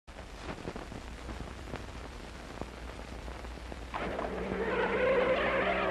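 Hiss, low hum and scattered crackles from an old 1950s film soundtrack, then music starts about four seconds in.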